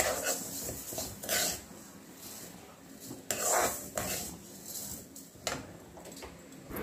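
Dry-roasted moong dal clinking against a stainless steel kadhai as a metal spoon stirs and scrapes it, in about five separate strokes. The crisp, clinking rattle is the sign that the dal is fully roasted.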